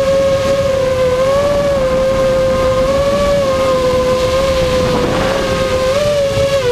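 FPV quadcopter's four 2205 2300kv brushless motors and propellers whining, heard from the onboard GoPro. The pitch holds fairly steady, dipping and rising slightly with throttle, over a rushing noise of wind and prop wash.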